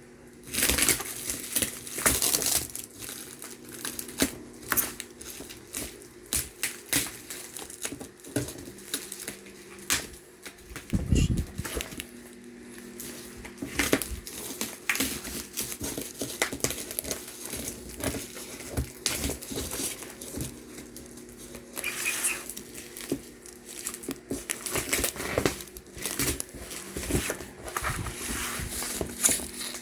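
Parcel packaging being handled and opened by hand: plastic and paper crinkling and rustling in irregular crackles throughout.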